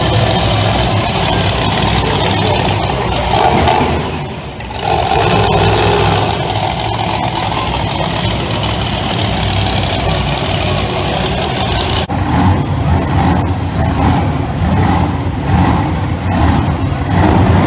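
Monster truck engines running loud in an arena, rising and falling with revs. The sound drops briefly about four seconds in, and in the later part comes in repeated pulses of revving.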